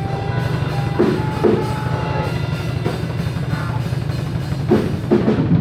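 A hardcore metal band playing live: electric guitars and bass guitar over a drum kit, with sharp drum hits standing out about a second in and again near the end.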